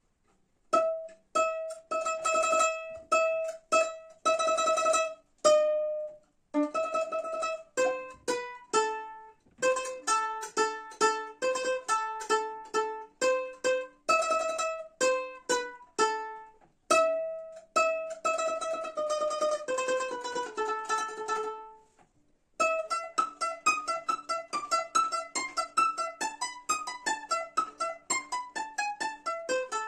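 Bowl-back mandolin played solo with a pick: a melody in plucked notes, phrase by phrase with short pauses, including stretches of rapid tremolo picking.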